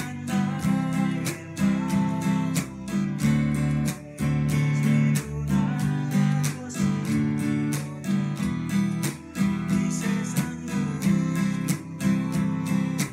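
Steel-string acoustic guitar strummed with a pick in a cutting rhythm: quick chord strokes broken by sharp, muted chops, in a steady repeating pattern.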